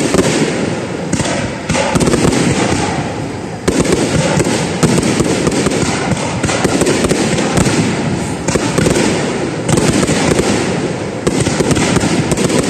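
Fireworks display: aerial shells bursting in quick succession, a dense crackle over rumbling booms, with fresh loud volleys several times.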